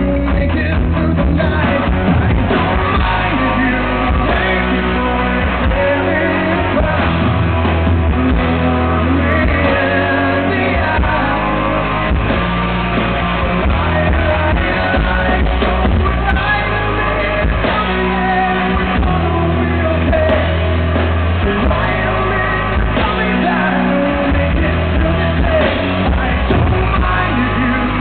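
Live rock band playing loudly, with electric guitars and a male lead singer.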